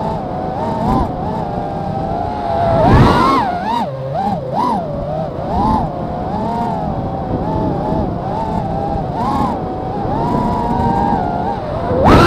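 FPV racing quadcopter's brushless motors whining, the pitch rising and falling constantly with the throttle. There is a sharp, loud throttle punch about three seconds in and another at the end.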